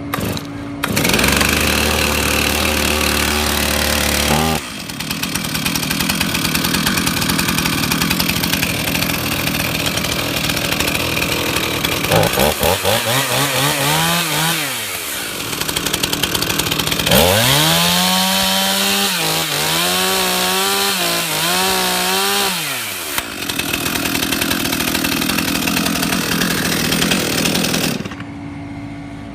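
Stihl two-stroke chainsaw starting on half choke with one pull and running at high speed, then dropping back to idle when the trigger is squeezed about four seconds in. The throttle is blipped once, then several times, before the engine cuts off near the end.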